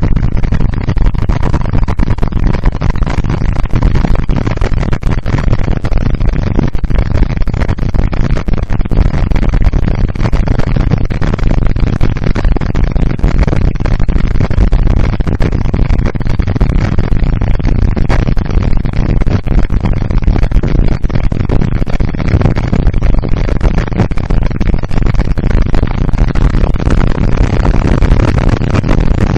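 Loud, steady wind buffeting on the microphone of a camera mounted on a cruiser motorcycle riding at highway speed, mixed with the bike's road and engine noise.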